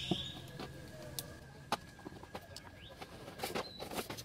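Sharp clicks and snaps of side-cutting pliers gripping and working at metal rivets in a plastic side skirt, several spread irregularly, with a bird calling in the background.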